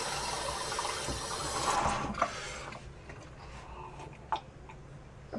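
Water running into a glass jug, stopping about two and a half seconds in, followed by a few faint knocks.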